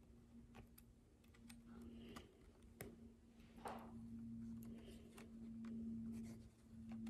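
Faint, scattered clicks of steel suturing instruments, a ring-handled needle driver and forceps, being handled while a suture knot is tied, over a steady low hum.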